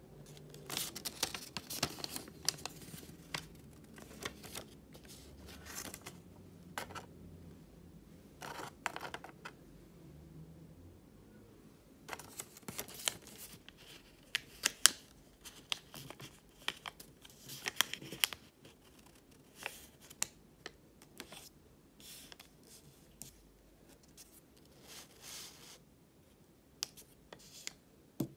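Origami paper being folded by hand: irregular crisp rustling and crinkling, with short sharp clicks as the creases are pressed down.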